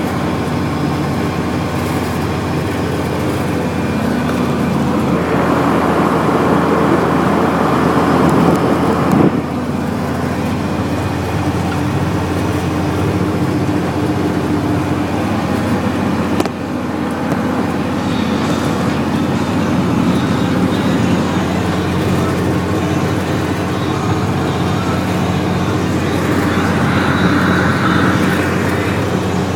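Snowplow truck running steadily while plowing, its engine a constant low drone. About five seconds in, a louder rushing, scraping noise builds for around four seconds and then cuts off suddenly.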